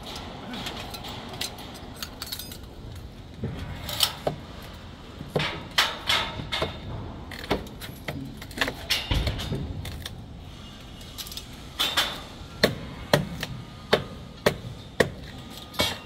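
Sharp metallic clinks and knocks of hand work on scaffolding and formwork: scattered at first, then an even run of strikes about twice a second in the last few seconds.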